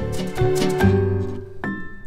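Background music: a tune of separate notes, growing a little quieter near the end.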